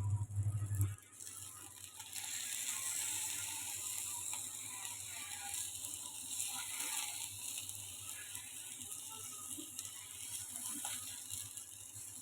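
Fish sizzling and crackling as it fries in a non-stick pan, a steady hiss with fine crackles. A low thumping beat from music is loudest at the start and cuts off about a second in.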